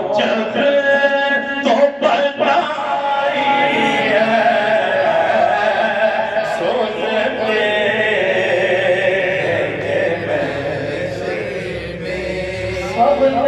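A man's voice chanting an Islamic devotional recitation in long, drawn-out melodic phrases, held and bent in pitch.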